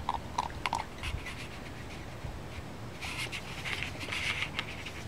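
Dogs at close range: short snuffling breaths and clicks of teeth on a ball in the first second, then a run of quick, hard panting breaths about three seconds in.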